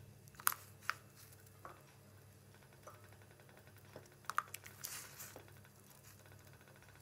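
Potato fingers being stirred by hand in water in a stainless steel pot: a few light clicks and small splashes, mostly early and around the middle, over a low steady hum.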